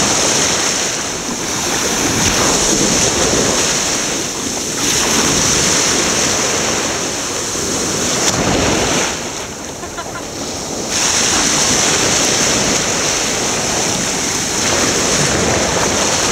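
Sea water washing and lapping in the shallows, with wind buffeting the microphone; the noise eases briefly about ten seconds in.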